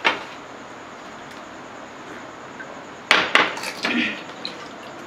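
Crisp panipuri (golgappa) shells being cracked open with the fingers and bitten: a quick cluster of sharp crackling crunches about three seconds in, after a single sharp click at the start.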